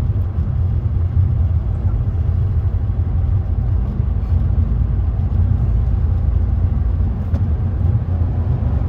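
Steady low rumble of a K04-turbocharged Audi A4 2.0T four-cylinder being driven, running smoothly without breaking up: the misfire under load is cured by new Eldor coils and colder, correctly gapped spark plugs.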